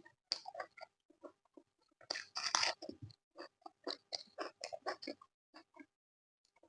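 Close-miked chewing of a person eating a curry-and-rice meal: irregular wet mouth noises in quick succession, with one longer, louder burst about two seconds in.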